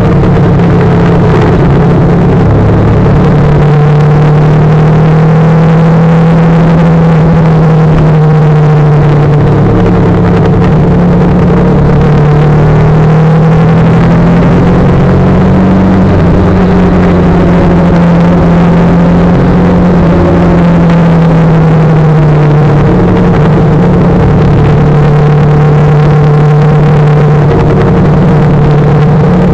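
Motorcycle engine running at road speed, its pitch rising and falling a few times with throttle and gear changes, over a steady rushing noise.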